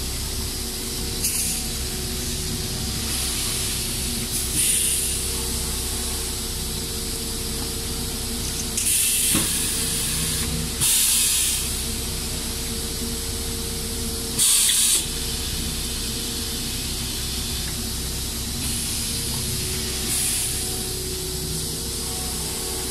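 Pulp-moulding shoe-tree forming press working, its pneumatic cylinders giving several sharp hisses of released compressed air every few seconds over a steady machine hum. The loudest hiss comes about halfway through.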